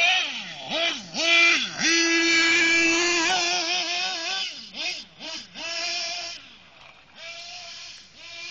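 Radio-controlled car's motor revving up and down in quick swoops, holding a steady high whine for about a second in the middle, then getting quieter near the end as the car drives off.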